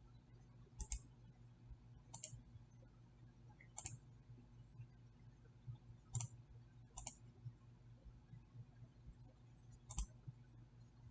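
Faint computer mouse clicks, about six of them at irregular intervals, over a low steady hum.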